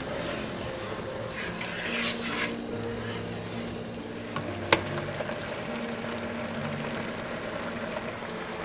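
Cream sauce sizzling in a frying pan while a spatula stirs it, with one sharp tap a little past halfway.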